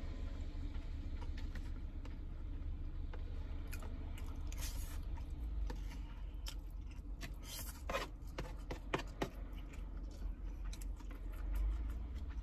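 Plastic spoon scraping and clicking against a plastic bowl of fried rice, with chewing, over a steady low hum.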